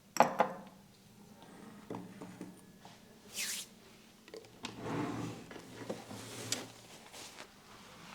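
Hands massaging a head: rubbing and friction on hair and skin with small taps and clicks, opening with a sharp loud snap.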